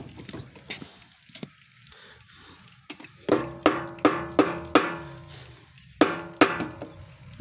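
Soft-faced plastic mallet striking the cast-metal engine-to-gearbox joint of a 9 HP diesel power weeder, each blow ringing briefly, to knock the housings apart during dismantling. About five quick strikes at roughly three a second, a short pause, then about four more, after a few seconds of light handling noise.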